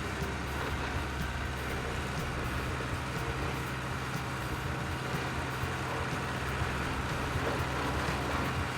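Large vehicle engine running steadily with a low, even hum.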